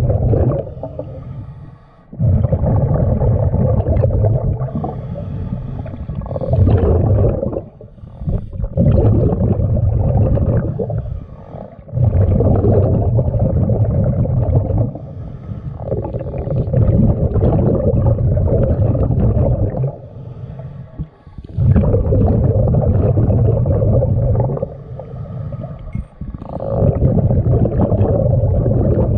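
Underwater audio of a diver's breathing: muffled rumbling, bubbling surges of exhaled air, each two to four seconds long, repeating every few seconds with short quiet gaps between.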